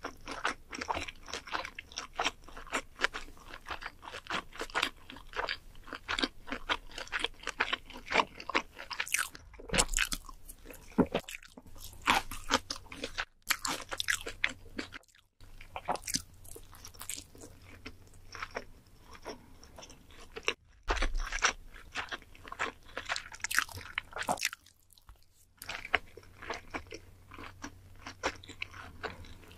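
A person chewing food close to the microphone: many small crunches and wet mouth clicks, broken by a few short pauses.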